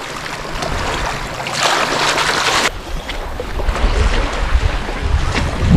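Wind buffeting the microphone over water washing at a lakeshore, with a louder second-long rush of water noise about two seconds in.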